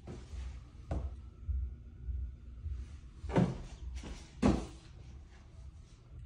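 Dull thumps, one about a second in and two louder ones about a second apart past the middle, over a low rumble from the phone being handled.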